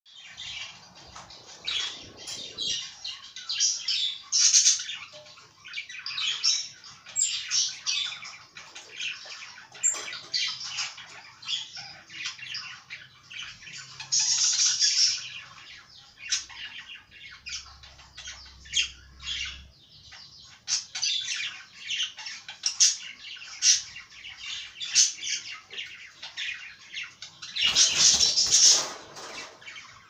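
Budgerigars chattering and warbling without a break: a dense stream of short chirps and squawks. A louder burst of noise comes near the end.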